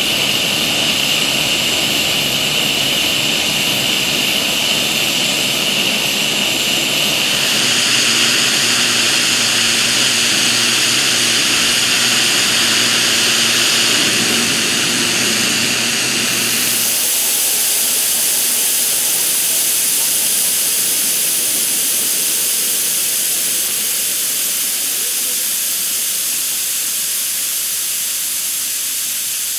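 Boiler blowdown valves on a 7.25-inch gauge live steam Union Pacific Big Boy locomotive blasting jets of steam and water out sideways: a loud, continuous rushing hiss that shifts in tone about seven seconds in and again around seventeen seconds in. This is the boiler being blown down as the locomotive is shut down.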